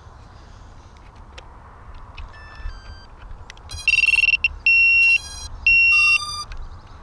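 Three loud, steady, high-pitched electronic beeps of about half a second each from the FPV racing drone's radio-control electronics, starting about four seconds in, with a few fainter short electronic tones a little before them.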